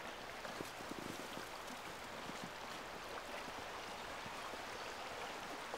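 Faint, steady background hiss with a few soft ticks.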